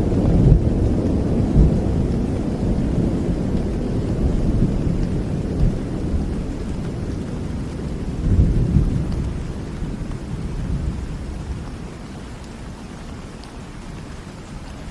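Rain falling with a long roll of thunder. The rumble dies away, swells briefly about eight seconds in, then fades out, leaving the steady hiss of the rain.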